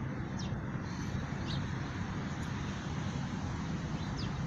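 Steady low outdoor rumble, with three short high bird chirps over it, about half a second, a second and a half, and four seconds in.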